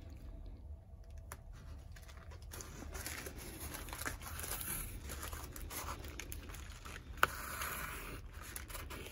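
Glitter washi tape being unrolled off its roll and pressed down onto the crinkly plastic cover of a diamond painting: a faint peeling and crinkling rustle, with a single sharp click late on.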